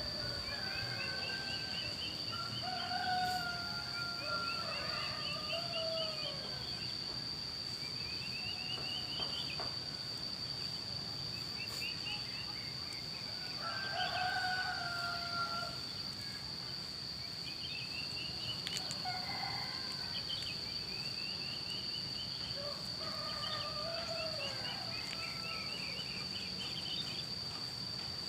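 Roosters crowing three times, answering each other at intervals, with bird chirps between the crows. A steady high insect drone runs underneath throughout.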